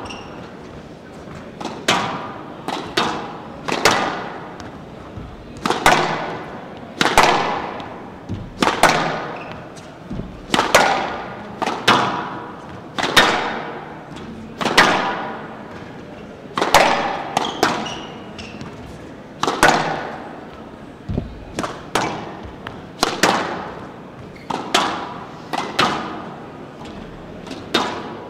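Squash ball being driven back and forth in warm-up: sharp racket strikes and the ball smacking the front wall, about one to two impacts a second, often in close pairs, each followed by a short echo off the glass court and hall.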